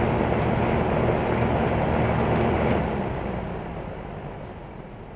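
A 1998 York Stellar Plus 1.5-ton air conditioner's outdoor condensing unit, with its compressor and condenser fan running, shutting down. The steady hum of the compressor stops about three seconds in, and the fan noise then fades away as the fan slows.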